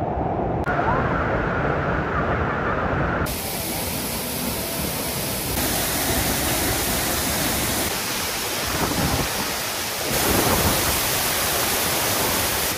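Waterfall's rushing water: a loud, steady hiss of falling water that changes tone abruptly several times.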